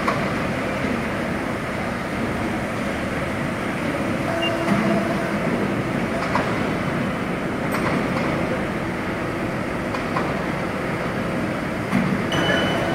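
Steady machinery noise of a factory floor, an even rushing hum with a few faint clicks and short faint tones.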